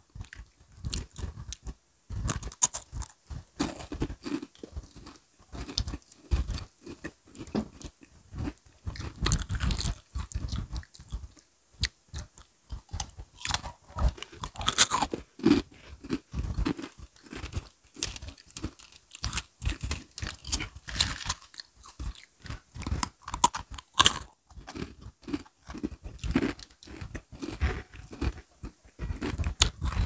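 Close-up chewing and crunching of crisp Oreo snacks by several people eating at once, with irregular crackling bites throughout.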